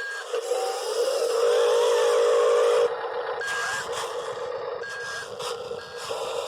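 Electric motors of a Huina 580 RC excavator whining steadily as its arm works, with a few short higher tones. About three seconds in the whine stops and a rougher scraping sound takes over.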